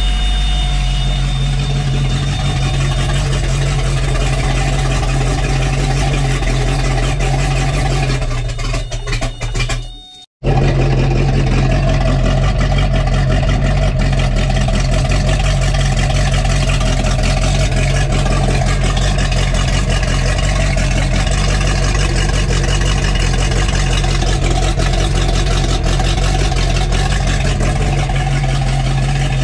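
Inboard boat engine, a formerly seized engine now freed, running steadily. About ten seconds in, the sound dips and cuts out for a moment, then the engine runs on.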